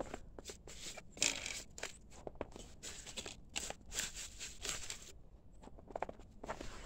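Footsteps crunching through fresh snow: a run of irregular crunches that thins out about five seconds in, with a few more near the end.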